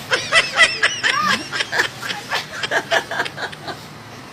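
A young girl laughing and giggling in quick repeated bursts that die away near the end.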